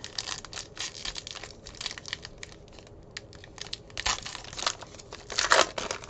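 Wrapper of a trading card pack being torn open and crinkled by hand: a run of small crackles, with louder rips about four seconds in and again near the end.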